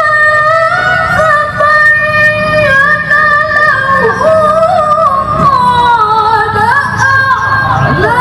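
A woman reciting the Qur'an in melodic tilawah style through a microphone. She holds long, high notes with wavering ornaments and slides between pitches, with a falling run near the end.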